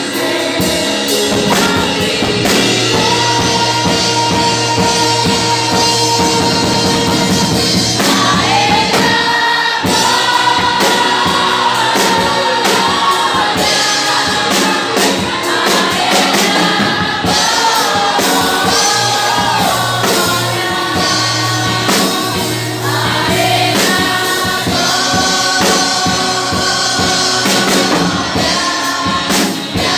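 Gospel music: a choir singing over a band with a drum kit.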